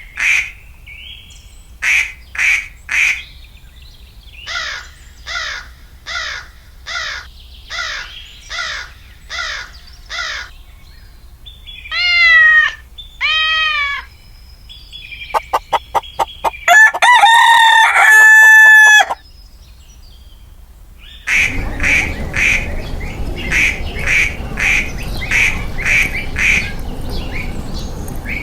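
Domestic fowl calling in succession: a run of short repeated quacks, two squawks, then a rooster crowing with one long held note near the middle. Rapid chirping and clucking follow over a noisy farmyard background.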